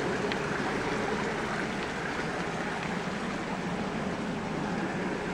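Creek water running steadily over a rocky bed, a continuous even rush.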